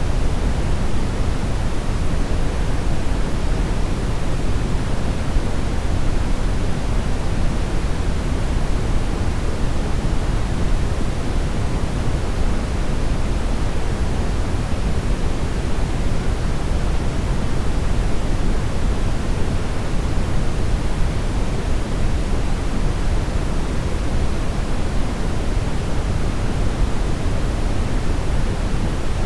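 Synthetic brown noise: a steady, even rumbling hiss, strongest in the bass and falling off toward the treble, with no events or changes.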